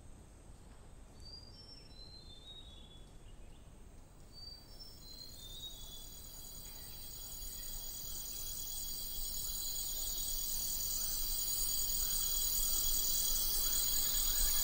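A couple of short, falling whistled bird calls in the first few seconds. Then a high, pulsing chorus of insects sets in about five seconds in and swells steadily louder.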